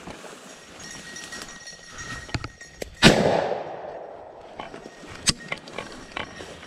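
A single shotgun blast about three seconds in, with a long echoing tail. About two seconds later comes a sharp metallic click as the break-action double-barrel shotgun is opened, with rustling brush around it.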